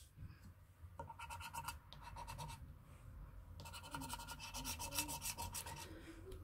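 The silver scratch-off coating of a Monopoly Gold scratch card being scratched away in rapid back-and-forth strokes. The scratching comes in two spells: one starts about a second in, and a longer, denser one starts a little after three seconds in.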